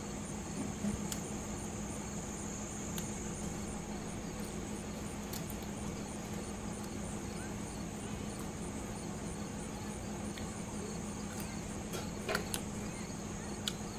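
Crickets chirring steadily with a low steady hum beneath, and a few soft clicks and smacks of a person chewing food, the loudest a little before the end.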